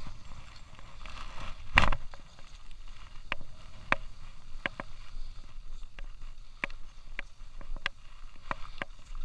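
Skis running over groomed snow, with a louder scrape about two seconds in. A low steady rumble underneath, and sharp clicks about every two-thirds of a second.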